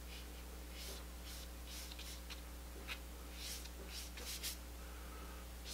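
Bristle brush loaded with oil paint stroking across paper: a series of short, faint, scratchy swishes, about ten strokes in quick succession.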